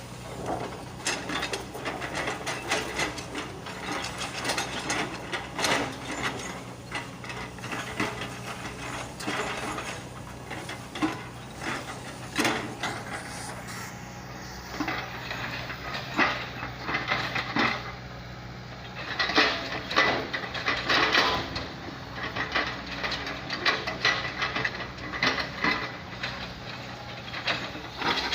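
Plastic toy log-grabber excavator being played with, its parts clicking and rattling irregularly with a ratchet-like sound.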